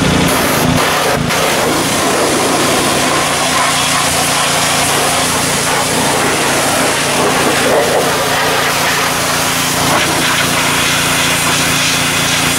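Pressure washer wand spraying water over an engine bay, a loud steady hiss of water striking the engine and plastics, with a steady engine hum underneath.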